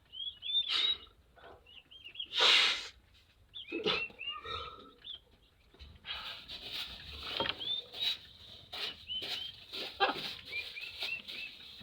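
Young chicks peeping: many short high chirps repeated in quick runs. Short rustling and scraping noises fall between them, the loudest about two and a half seconds in.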